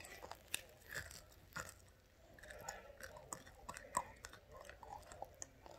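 A child chewing food close to the microphone: faint, irregular wet mouth clicks and smacks.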